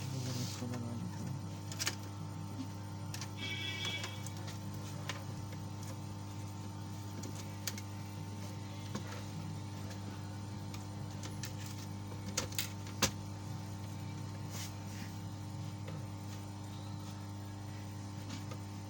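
Small clicks and knocks of laptop parts being handled as a motherboard is fitted into the laptop's base, over a steady low electrical hum.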